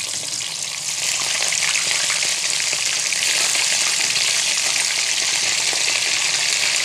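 Raw chicken pieces sizzling as they are dropped into hot ghee in a wok: a steady, dense frying hiss that grows louder about a second in as more pieces go in.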